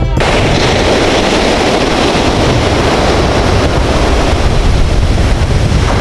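Surf: small waves breaking and washing up a sandy beach, with wind buffeting the microphone as a heavy low rumble.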